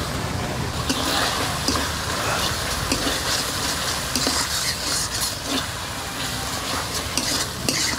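Spice paste (masala) sizzling in hot oil in a kadai while a metal spatula stirs and scrapes it, with scattered scraping clicks over a steady sizzle. The masala is being fried down until the oil separates.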